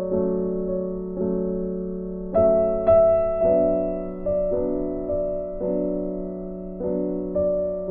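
Background music: a slow, gentle piano melody, its notes struck one after another and left to fade.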